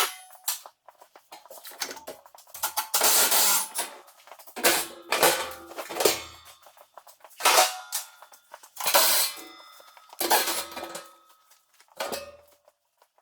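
Metal tools and steel tractor parts clanking and clattering, in about seven short bursts with a ringing after each.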